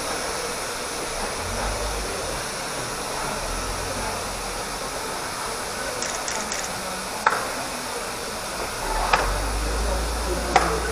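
Steady hiss of escaping steam from a standing steam locomotive, with a few sharp knocks in the second half and a low rumble swelling near the end.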